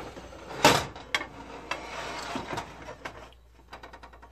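Empty aluminium stockpot knocking against the electric stove top as it is handled and set down, with one loud clank under a second in and a few lighter knocks and scrapes after it.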